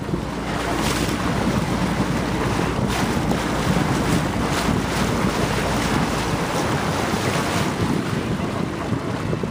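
Wind buffeting the microphone in steady gusts, with water lapping underneath.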